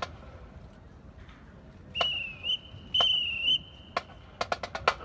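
Two short warbling whistle blasts about a second apart, each lasting about half a second, followed near the end by a quick run of sharp clicks.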